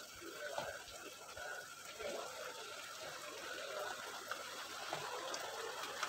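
Half-boiled rice tipped from a stainless-steel colander into a wok of masala and pushed out with a spatula: a soft, steady rushing noise with a few light scrapes and taps.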